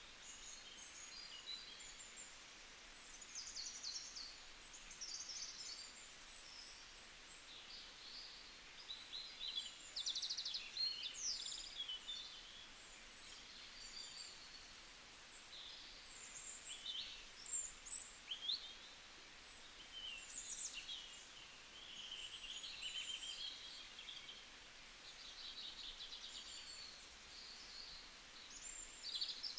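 Several small songbirds chirping and trilling, a near-continuous overlapping chorus of short high calls over a faint steady hiss.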